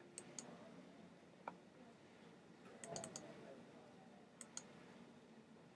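Faint computer mouse clicks in small groups of two or three over near-silent room tone.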